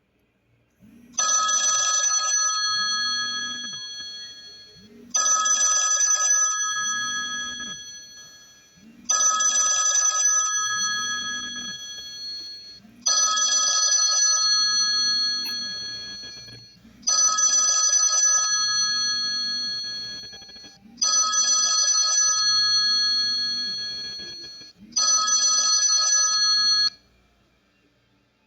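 A ringing tone made of several high pitches sounding together, repeated seven times about four seconds apart. Each ring starts suddenly and fades, and the ringing stops near the end.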